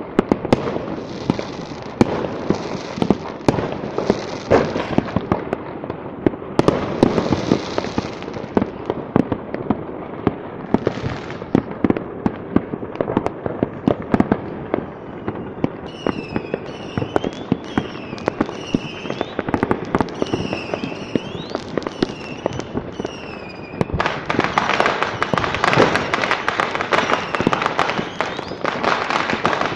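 Many firecrackers and fireworks going off at once, a continuous dense volley of pops and bangs. From about halfway, a series of short whistles rises and falls in pitch, and near the end the crackle grows louder and denser.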